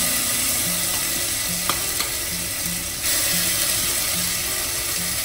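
Chicken meat sizzling steadily as it is tipped from a bowl into hot avocado oil in a pot, swelling louder about three seconds in as more meat goes in. A couple of light clicks sound near the middle.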